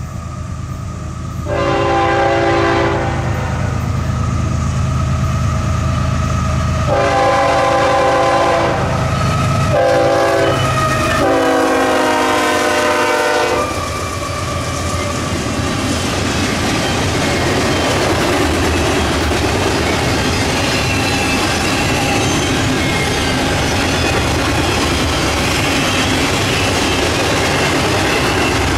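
Canadian Pacific diesel freight locomotive sounding its air horn for a grade crossing in the standard long, long, short, long pattern over its engine rumble. The last blast drops a little in pitch as the locomotive passes. Then a stack train rolls by close, with the steady rolling rattle of its wheels on the rails and faint high wheel squeals.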